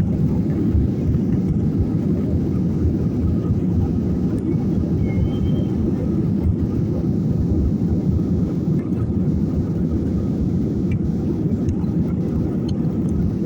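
Steady low rumble of jet engines and rushing air, heard from inside an airliner cabin as it climbs after takeoff.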